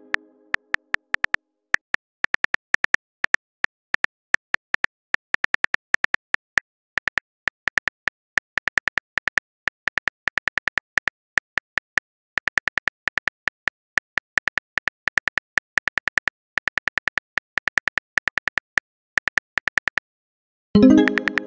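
Simulated smartphone keyboard typing clicks from a texting-story app, coming in quick irregular runs of taps. Near the end a short pitched message tone sounds and fades as a new message pops up.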